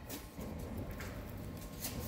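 A few faint, short clicks or taps, spread about a second apart, over low workshop background noise.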